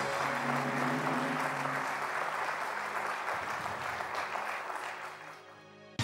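Studio audience applauding a correct answer, with a low musical sting under it for about the first two seconds; the clapping dies away near the end.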